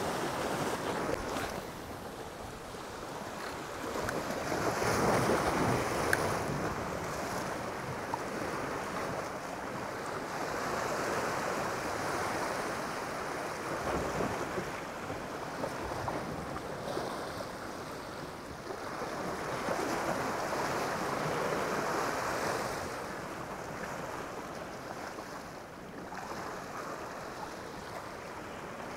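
Sea surf washing and breaking against jetty rocks, growing louder in two surges, about five seconds in and again around twenty seconds in.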